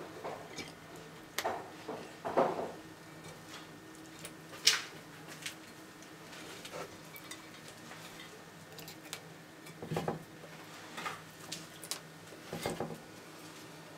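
Scattered light clicks and knocks at irregular times, a few of them sharper, from a Dumeril's monitor's claws and snout on a stone ledge as it moves about while feeding. A faint steady hum lies underneath.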